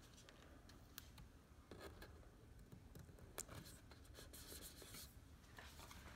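Near silence, with a few faint clicks and light scratching as fingers handle a plastic screw cover cap on a white picture ledge.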